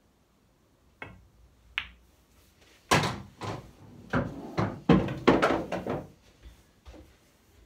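Pool balls: a click as the cue strikes the cue ball about a second in and a sharper click as it hits a yellow shortly after. About three seconds in comes a run of loud thuds and knocks, the potted ball dropping into the pocket and rolling inside the table, with a few fainter knocks near the end.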